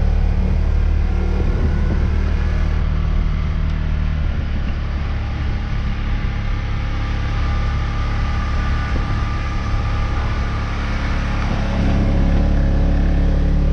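Engine of a vehicle towing a makeshift field drag, running steadily. It eases a little in the middle and picks up again about twelve seconds in.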